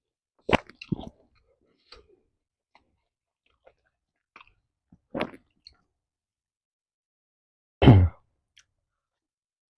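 Close-miked eating of chewy pempek fish cake: scattered wet mouth clicks and chewing sounds. The loudest and deepest comes near the end.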